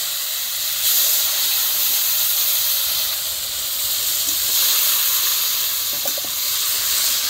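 Masala-coated pumpkin greens with potato and jackfruit seeds sizzling in hot oil in an iron wok: a steady hiss as the moist vegetables hit the oil and throw off steam.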